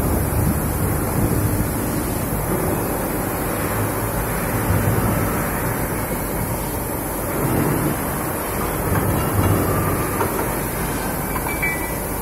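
Steady low drone of industrial machinery on a factory floor, with a few faint metallic clinks near the end.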